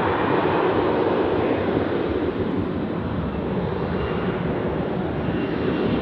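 Boeing 737 freighter's jet engines at takeoff power as the airliner accelerates down the runway: a loud, steady rushing noise.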